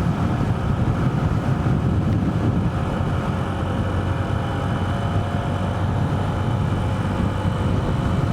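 Honda CB125F's single-cylinder four-stroke engine running at a steady cruising speed, a faint even engine note under heavy wind buffeting on a clip-on lav mic.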